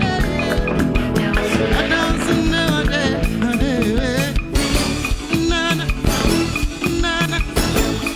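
Live band music with keyboard, guitar and drums over a steady beat, carrying a melody line with vibrato.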